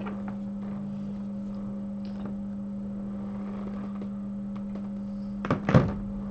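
A steady low electrical hum with a fainter higher tone above it, and two or three sharp taps close together about five and a half seconds in.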